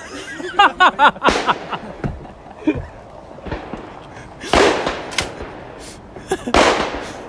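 Two 12-gauge shotgun shots about two seconds apart, each trailing off in a short echo.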